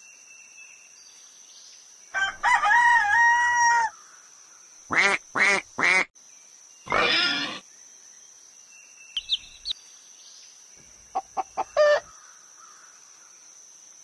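Cartoon farm-animal sound effects one after another. A rooster crows once about two seconds in. Shorter animal calls follow: three quick calls, a harsh call, a few faint high peeps and a quick run of short calls near the end. A faint steady high whine runs underneath.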